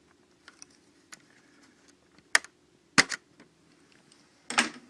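Small plastic clicks and taps of laptop parts being handled during disassembly: a few faint ticks, then two sharp clicks about half a second apart in the middle.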